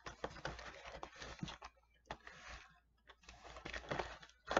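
Crinkling and rustling of individually wrapped fig bar packaging being handled, in three short bouts, with a sharper crackle near the end.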